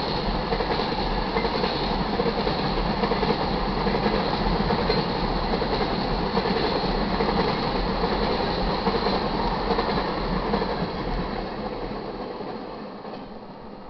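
Railroad tank cars of a freight train rolling past close by, steady wheel-on-rail noise that fades over the last few seconds as the end of the train goes by.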